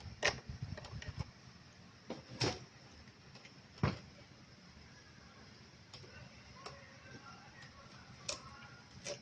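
Scattered clicks and knocks from hands handling an opened LCD projector's housing and circuit board, about half a dozen in all, the loudest about four seconds in.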